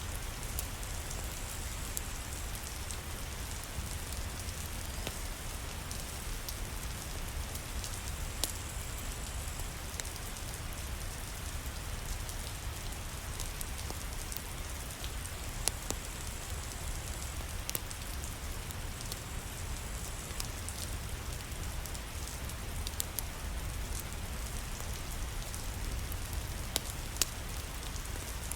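Steady rain falling, an even hiss with a low rumble underneath and scattered sharp ticks and pops every few seconds.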